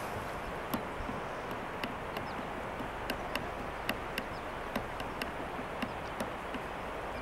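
Steady rushing of the flood-swollen Bow River in full spate, with sharp irregular clicks about twice a second and a few faint bird chirps.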